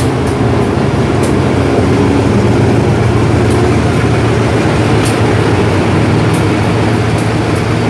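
SRT GEA-class diesel-electric locomotive running as it passes close along the platform, a steady engine hum. A few sharp clicks from the wheels on the rails come through over it.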